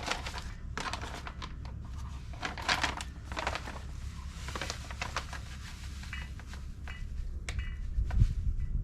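Dry herb seasoning mix rustling and scraping as a measuring cup scoops it from a bag and pours it, with scattered small clicks and crinkles.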